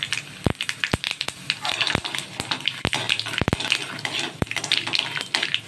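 Mustard and cumin seeds spluttering in hot oil in a steel kadai: a steady sizzle broken by irregular sharp pops as the mustard seeds burst, while a metal spatula stirs them.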